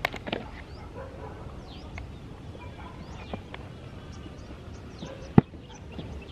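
Small clicks and knocks of a drone and its plastic carry case being handled close to the microphone, with one sharp click about five seconds in; faint short bird chirps sound in the background.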